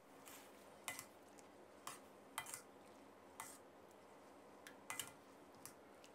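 Wire-mesh strainer clinking against a metal pot while stirring and lifting blanched rice noodles in water: about nine light, separate taps scattered over a near-silent background.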